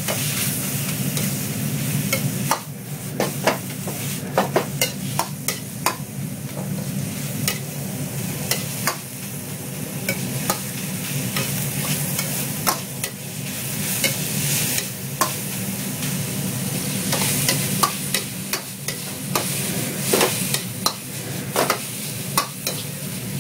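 Minced chicken sizzling in a hot pan as it is stir-fried with a little chicken stock, the spatula scraping and knocking against the pan in quick, irregular clicks.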